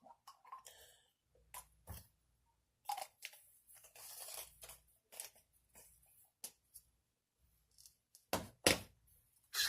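Scattered small clicks and ticks of AR-15 bolt parts and tools being handled on a workbench, with a soft brushing noise about four seconds in and a couple of louder clicks near the end.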